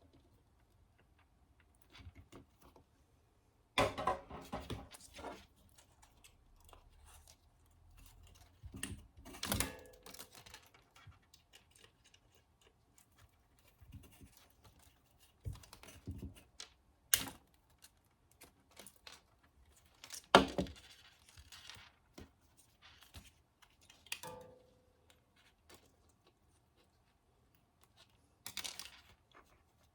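Scattered clicks, taps and rustles from small plastic and metal parts and tools being handled while the front-panel buttons of a stereo receiver are being replaced. Two sharp clicks a little past the middle are the loudest.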